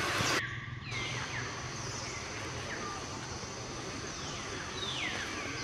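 Animal calls: short whistles, each falling in pitch, repeated about once a second over a steady low hum. A loud hiss cuts off abruptly just before they start.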